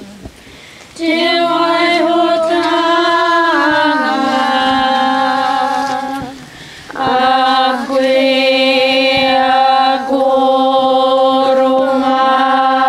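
Children singing unaccompanied in long, held notes, like a slow chant. There are two phrases: the first breaks off about six seconds in, and the second starts about a second later and is still held at the end.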